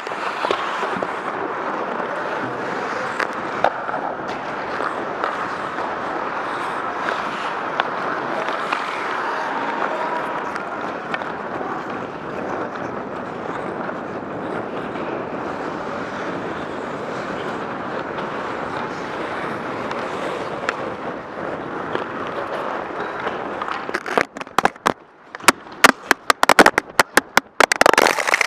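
Ice hockey skating on a rink, heard from a helmet-mounted camera: a steady rush of noise from skates on the ice. Near the end comes a quick run of loud, sharp knocks and clicks.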